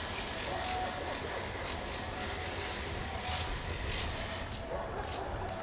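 Two coupled X72500 diesel multiple units running, with a steady low engine rumble and a faint mechanical hum, and a few sharp clicks toward the end.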